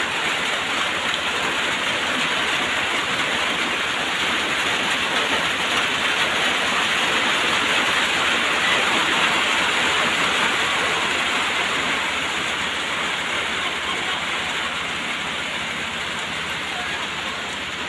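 Steady rain falling, an even, dense hiss with no break.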